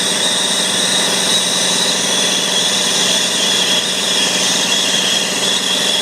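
Brazing torch burning steadily with an even roaring hiss as it heats a copper refrigerant-line joint during brazing.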